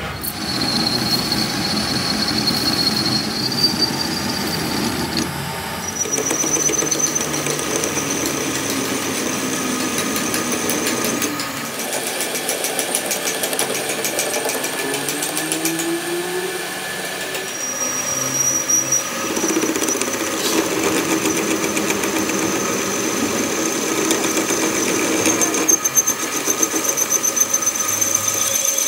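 Metal lathe running, its cutting tool facing the steel end of a rear axle shaft held by its flange in a three-jaw chuck. A steady machine drone with a high steady whine from the cut, which steps up in pitch about six seconds in and again near eighteen seconds.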